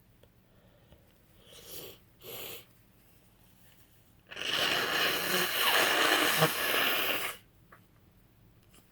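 A woman with a cold takes two short, noisy breaths, then blows her congested nose hard into a tissue for about three seconds.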